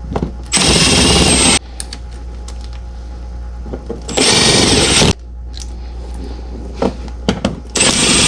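Power drill running in three short bursts of about a second each with a high whine, driving bolts back in as the parts are reinstalled.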